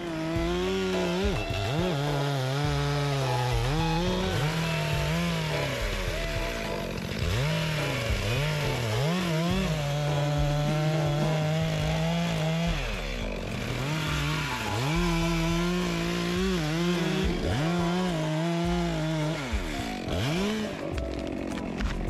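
Stihl two-stroke chainsaw cutting through a pine trunk. It is held at full throttle for a few seconds at a time, and between cuts its pitch repeatedly drops and sweeps back up.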